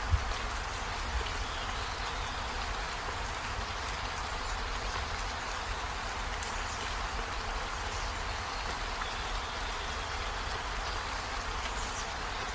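Steady rainfall, an even hiss of drops with a low rumble underneath. A single brief knock sounds right at the start.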